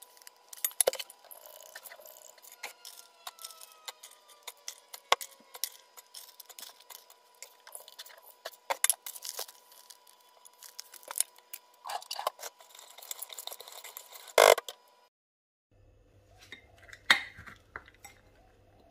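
Sugar and ingredients being poured into a stainless steel stockpot, with scattered clinks and taps of a measuring cup against the pot. A sharp knock comes about fourteen seconds in.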